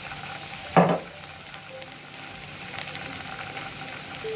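Chopped vegetables sizzling steadily in hot oil in a non-stick kadai, with one loud short knock about a second in.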